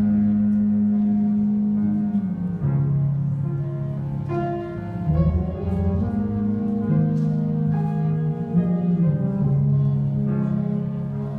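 High school concert band playing live: a slow passage with long held low notes that change every couple of seconds under a quieter melody.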